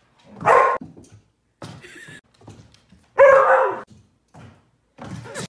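A dog barking loudly twice: a short bark about half a second in, then a longer, drawn-out one about three seconds in that falls in pitch.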